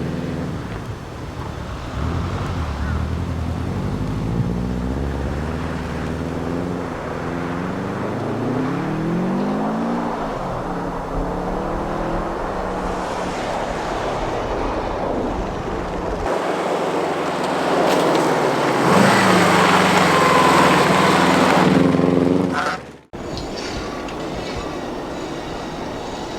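Subaru Impreza GC8 rally car running hard on a snow special stage, its engine note rising and falling through revs and gears, with a louder rush in the second half as it passes close. The sound cuts off suddenly near the end.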